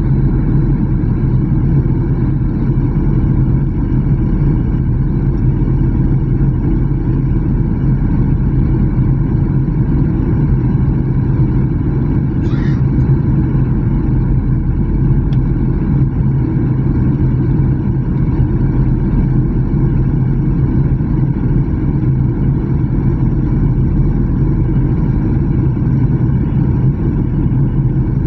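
Steady drone of a jet airliner's engines and rushing airflow heard from inside the passenger cabin during the descent to land, with a constant low hum underneath.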